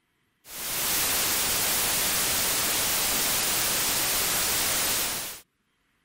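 Noise synthesized from the decimal digits of Euler's number e and played as a sound curve: an even, full-range hiss like white noise. It starts about half a second in and cuts off suddenly about five seconds later.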